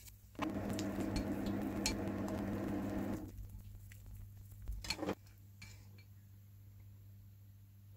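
Kitchen sounds: a steady mechanical whir for about three seconds, then a short clatter of a dish or utensil about five seconds in.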